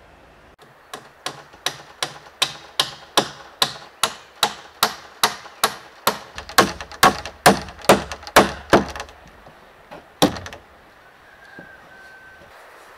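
Hammer driving nails into a wooden wall frame: a steady run of about twenty blows, roughly two and a half a second, getting louder about halfway through, then one last blow after a short pause.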